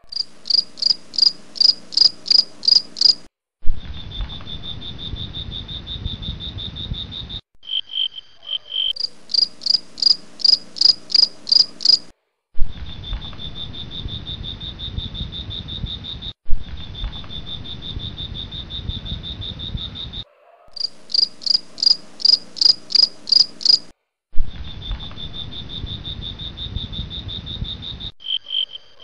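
Crickets and other night insects calling. A steady high trill alternates with runs of sharp, evenly spaced chirps about two and a half a second. The sound breaks off abruptly every few seconds, sometimes with a click.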